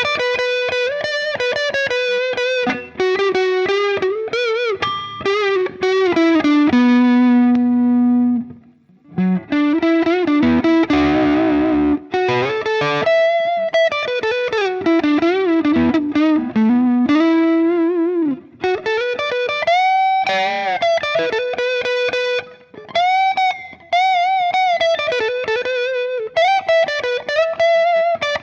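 Harley Benton SC-DLX electric guitar on its neck pickup, with Tesla split-coil pickups, played overdriven through a Hotone Ampero One's Mesa Boogie Mark IIC+ amp preset. It plays single-note lead lines with bends and vibrato, and one low note is held briefly about a third of the way in.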